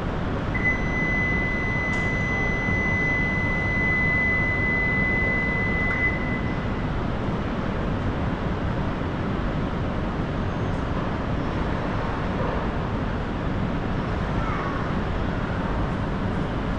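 Steady, even rumbling noise with no rise or fall, with a thin steady high tone held for about six seconds near the start.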